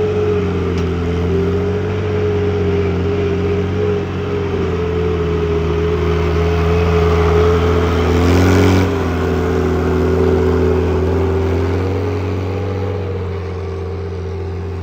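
Tractor engine running steadily under load, its pitch wavering slightly, and rising and growing louder for a moment about eight seconds in before settling back.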